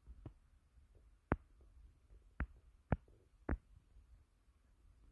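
About five short, light knocks and a few fainter ticks: carbon-fibre shooting-stick tubes and plastic fittings being handled and set down on a wooden tabletop during assembly.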